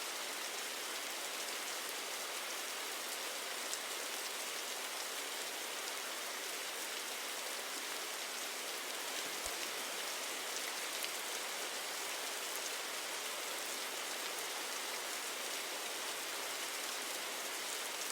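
Steady hiss of rain, even throughout, with faint scattered ticks.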